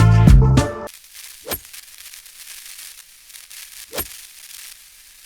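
Upbeat background music with a steady beat that cuts off abruptly about a second in, leaving a faint steady hiss with two soft low thumps.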